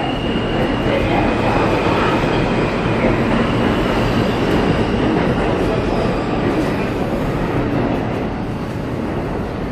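Steady rumbling din of R160 subway trains standing at an underground station platform, with a faint high whine running through it.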